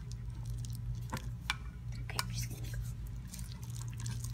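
Sticky green glue slime being stirred with a wooden craft stick in a stainless steel bowl as slime activator is mixed in: wet squelching, with a few light clicks about one to two seconds in.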